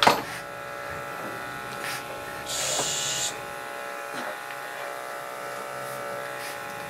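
Electric dog grooming clippers running with a steady hum as they trim around a dog's face. A sharp knock right at the start is the loudest moment, and a short hiss comes about two and a half seconds in.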